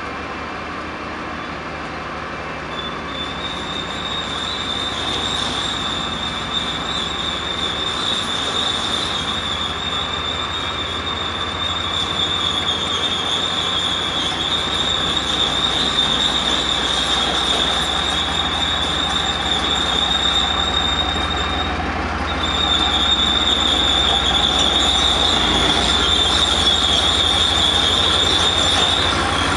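Leopard 1 main battle tank's MTU V10 diesel running as the tank drives slowly forward on its steel tracks, getting louder as it comes closer. A steady high whine sits over the engine and tracks, breaking off briefly about three-quarters of the way through.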